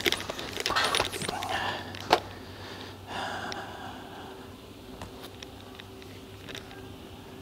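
Bowling alley clatter: a dense run of knocks and rattles in the first two seconds, ending in one sharp knock, typical of pins falling and pinsetter machinery. Then a steady machine hum with a few scattered clicks.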